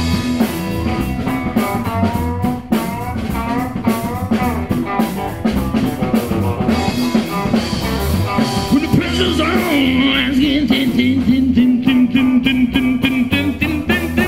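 Rock trio playing live without vocals: electric guitar lead with bending, wavering notes over electric bass and drum kit. In the second half the guitar switches to quick repeated high notes.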